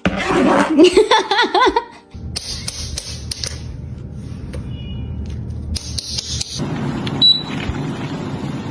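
A parrot imitating laughter with a rapid, wavering giggle for about two seconds, followed by a steady low hum.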